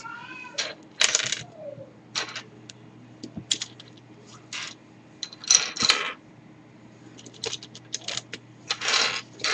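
Plastic pieces of a V-Cube 5 puzzle cube clicking and clattering as they are handled and fitted together, in irregular short clicks with a few longer rattles.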